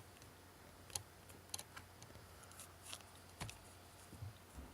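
Faint, irregular clicks of a rotary encoder's detents as its shaft is turned by hand, about six in all, over a faint low electrical hum.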